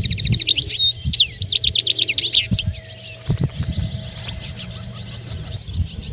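A flock of European goldfinches twittering and chirping, with many quick trills overlapping. There are low thumps now and then, the strongest near the start and about three and a half seconds in.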